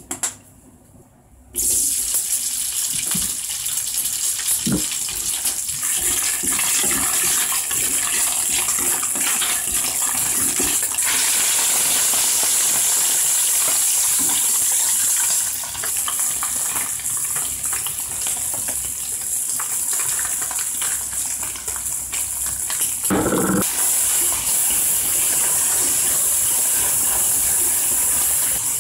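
Tatsoi and fish sausage sizzling hard in hot oil in a non-stick frying pan, a loud steady hiss that starts abruptly about two seconds in. A wooden spatula scrapes and taps the pan as they are stirred, with one heavier knock near the end.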